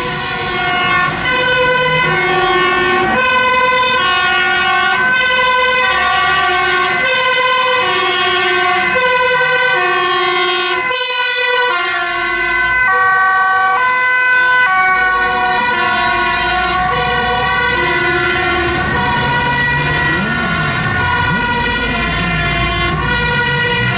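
Two-tone sirens of fire engines on an emergency run, alternating between a high and a low note, with the low rumble of the trucks' engines underneath. The sound breaks off briefly about halfway through, and in the second half a second siren overlaps at different pitches.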